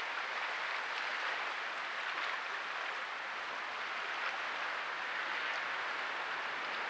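Steady hiss of open water rippling and lapping, with faint scattered ticks.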